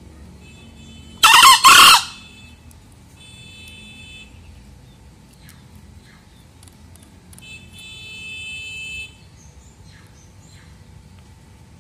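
A male green junglefowl crows once, loud and short, in two quick syllables about a second in. Fainter high, steady tones follow twice later.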